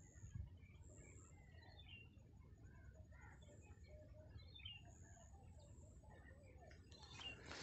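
Near silence with faint bird calls, a few short chirps, over a low rumble; a broad hiss starts near the end.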